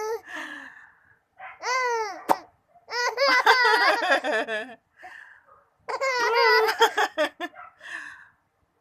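Five-month-old baby laughing in several separate bursts of high, wavering laughter, with short pauses between. There is a sharp click about two seconds in.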